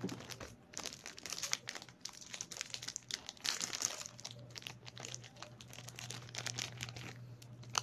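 Plastic wrapper of a Fudgee Barr snack cake being crinkled and torn open by hand, a continuous irregular crackle that is densest about midway.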